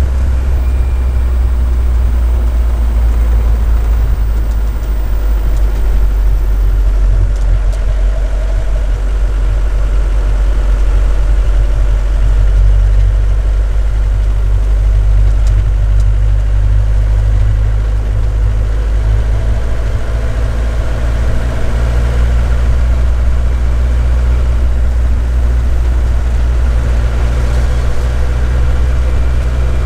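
The diesel engine of a 1977 Mercedes 206D van running steadily on the move, heard from inside the cab as a loud, even, low drone.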